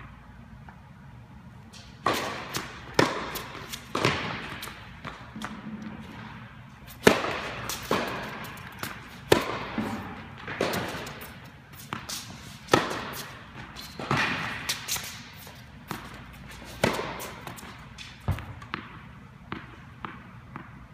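Tennis balls struck by rackets and bouncing on an indoor hard court during a rally: sharp pops about once a second, each echoing in the large hall. They begin about two seconds in.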